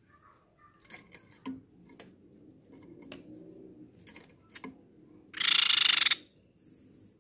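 Crescent-chested babbler giving one loud, harsh call of under a second about five and a half seconds in, followed by a brief thin high whistle near the end. Scattered light clicks come before it.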